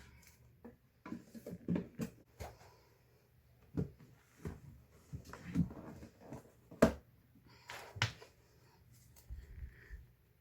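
Hands handling books and their packaging: a string of irregular soft knocks, taps and rustles, with a sharper knock about two-thirds of the way through.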